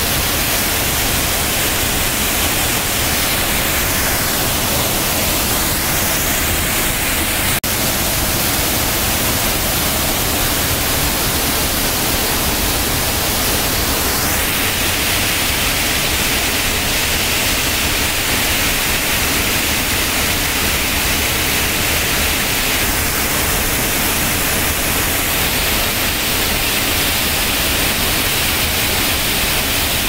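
Waterfall: a loud, steady rush of water falling over rock into a plunge pool.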